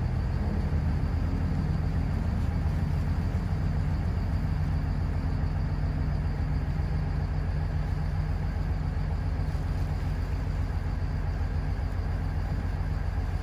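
Steady low engine rumble of a boat, with a constant droning hum and no change in pitch.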